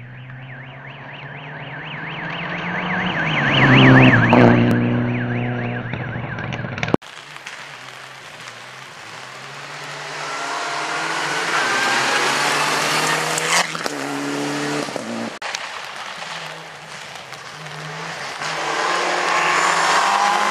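Rally car engines at full throttle on a gravel stage, revving and shifting gear as they approach. A first car grows loud and passes about four seconds in, then the sound cuts off abruptly a few seconds later. A second approach follows, with a sharp crack partway through, and ends with a Mitsubishi Lancer Evolution's turbocharged four-cylinder getting louder as it nears.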